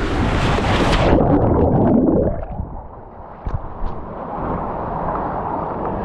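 An inner tube splashing down out of a water slide into the splash pool. Rushing water gives way about a second in to a loud, muffled churning of water, which dies down after another second into quieter gurgling.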